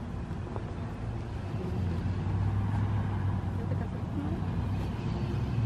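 A steady low motor hum, growing louder about two seconds in, with faint voices in the background.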